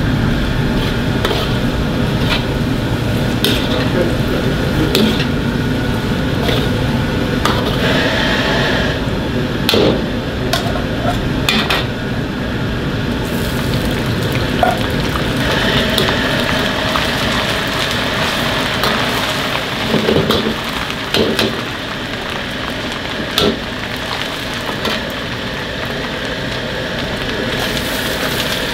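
Diced meat frying in deep, bubbling oil in a carbon-steel wok: a steady sizzle, with a metal ladle stirring and clinking against the wok now and then. Near the end, chopped cabbage is tipped into the hot oil.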